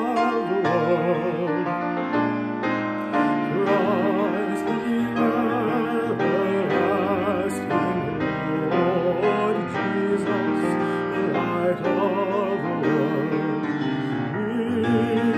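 Music from a worship service: singing with marked vibrato, accompanied by piano.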